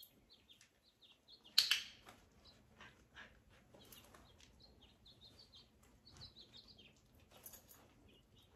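A training clicker clicks once, sharply, about one and a half seconds in, marking the puppy's response. Faint light ticks and crunching follow as the puppy moves about on the hardwood floor and eats the treat.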